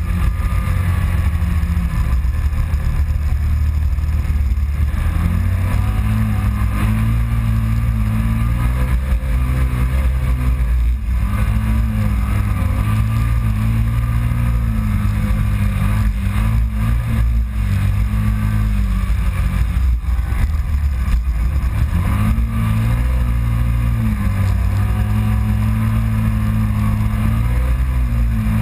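Kawasaki Teryx side-by-side's V-twin engine pulling hard over sand dunes, its pitch rising and falling as the throttle opens and eases, over a steady rush of wind and driving noise.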